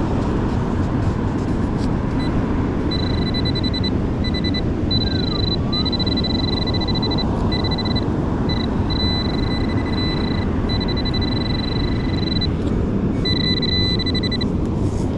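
Steady rush of storm wind and surf on the microphone, with a metal detector's high, steady tone sounding on and off from about three seconds in until near the end, signalling a buried metal target.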